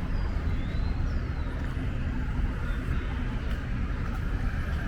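Steady city traffic rumble in an urban park, with a few faint high bird chirps near the start.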